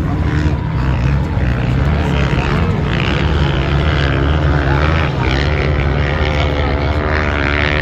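Small two-bladed helicopter flying overhead, its rotor giving a steady, rapid low chop. An even engine hum joins in during the second half.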